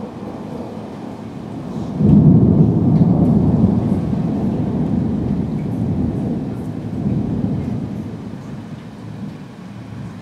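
Thunder rumbling after a storm. It builds, breaks into a sudden loud peal about two seconds in, then rolls on, slowly fading, with a smaller swell near the end.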